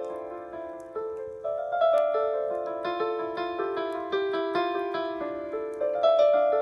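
Piano-sounding keyboard playing an improvised melody of struck, decaying notes over other held notes, with louder notes about a second in, at two seconds and near the end.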